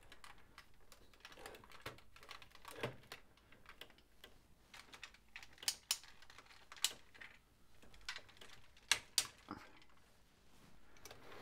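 Hard plastic clicking and light knocking as a large plastic transforming robot figure (Jinbao Devastator combiner) is handled and posed, its joints being moved. The clicks come scattered and sharp, a few standing out above faint rustling, two close together near the end.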